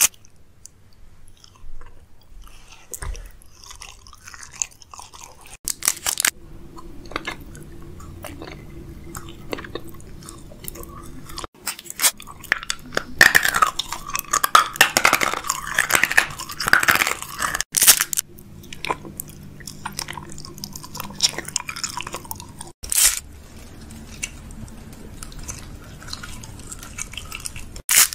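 Close-miked chewing and crunching of hard candy in the mouth, a stream of crackles and clicks with a spell of loud crunching around the middle. The sound breaks off abruptly a few times where one clip cuts to the next.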